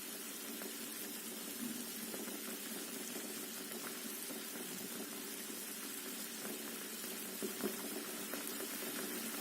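Water boiling in a pot with potatoes and eggs, a steady bubbling with small pops, a couple slightly louder near the end.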